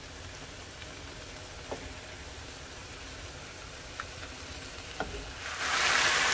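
Thin-sliced beef simmering in its beer marinade in a nonstick skillet: a low, steady bubbling hiss with a few light clicks of a fork against the pan. Near the end a much louder frying sizzle takes over, the sound of the meat searing once the liquid has cooked off.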